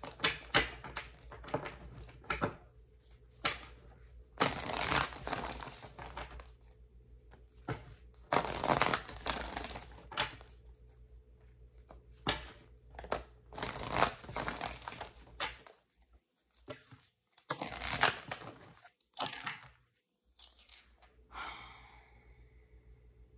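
A deck of tarot or oracle cards being shuffled and handled by hand: several rustling spells of a second or two each, with soft taps between, over a faint steady hum.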